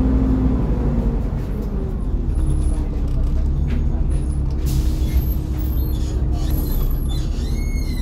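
Volvo B7TL double-decker bus running on its Volvo D7C diesel engine, a steady low rumble with a faint whine that drifts slowly in pitch. A short hiss of air, like an air brake release, comes about halfway through.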